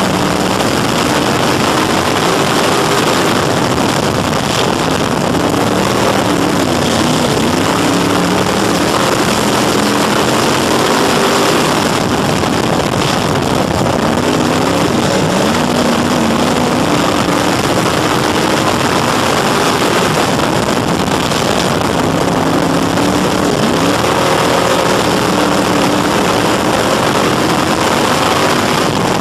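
Dirt-track Crate Sportsman race car's crate engine at racing speed, heard from inside the cockpit. The engine note repeatedly dips and climbs again every several seconds, as the car lifts into the turns and accelerates out of them, over a steady rush of noise.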